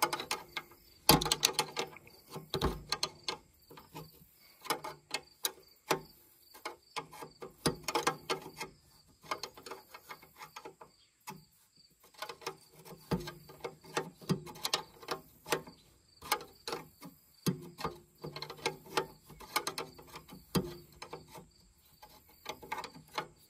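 Irregular metal clicks and taps of an open-end wrench being fitted, turned and repositioned on a steel fuel line nut as it is unscrewed from a diesel tractor's fuel filter head.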